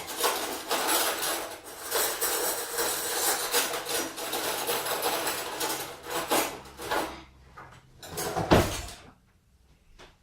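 Continuous clattering and knocking of objects being handled, then a single heavy thump about eight and a half seconds in.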